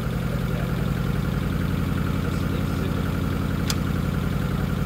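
Nissan Pulsar GTiR's SR20DET turbocharged four-cylinder engine idling steadily, with a single sharp click about three and a half seconds in.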